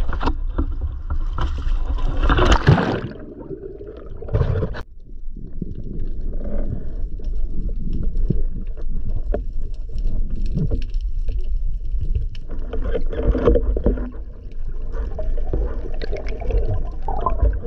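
Splashing and water rushing at the surface as a spearfisher ducks under, loudest about two and a half seconds in. After that comes muffled underwater sound: a steady wash of moving water, with scattered clicks and knocks against the camera housing and speargun.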